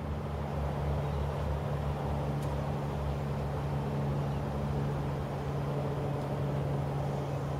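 A small engine running steadily nearby, a low even hum with a constant pitch.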